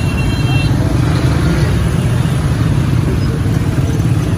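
Busy street traffic heard from a motorcycle in the thick of it: a steady low engine rumble from the bike and the motorcycles and motorcycle rickshaws running close alongside.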